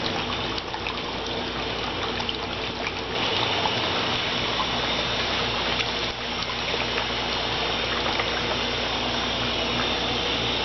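Water pouring steadily from a hose into a CNC plasma table's water table as it fills, driven by air pressure from a reservoir tank, with a steady low hum underneath. The pour gets a little louder about three seconds in.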